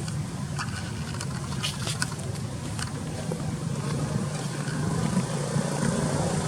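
A steady low engine hum with a few short faint clicks.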